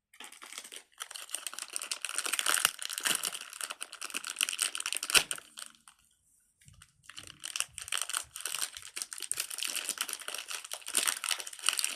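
Crinkling and crackling handling noise, dense and irregular, in two long spells with a short break about six seconds in.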